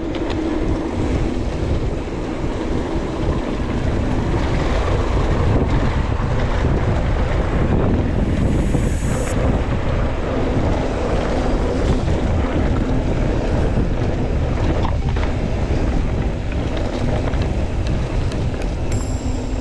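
Wind buffeting the camera microphone during a fast bicycle ride down a trail: a steady, loud rush with a few faint knocks from the bike.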